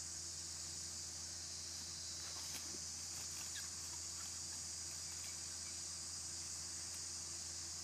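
Steady high-pitched buzzing of an insect chorus in forest undergrowth, with a low steady hum beneath. A few faint rustles of dry leaf litter come in the middle, as the monkey rolls onto its back.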